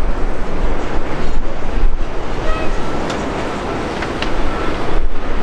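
Antonov An-124's four D-18T turbofan engines running loud as the freighter rolls out on the runway after landing: a heavy rumbling jet noise, with wind buffeting the microphone. A thin whine comes in about halfway through.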